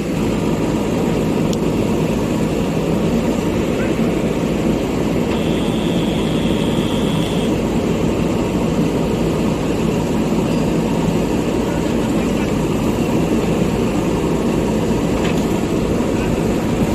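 Backhoe loader's diesel engine running steadily at working revs, with a brief high whine about five seconds in.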